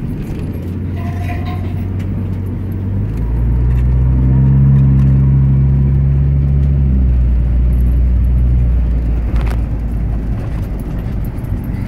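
Motorhome driving on a dirt road, heard from inside the cab: steady engine and road noise, with a low engine drone that swells about three seconds in, holds, and eases off again near the end.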